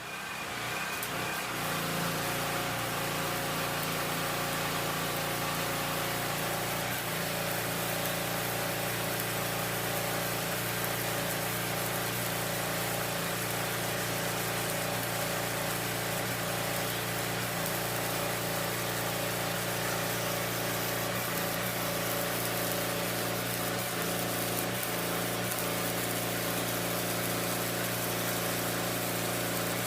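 A power tool or motor-driven workshop machine running steadily with an even hum.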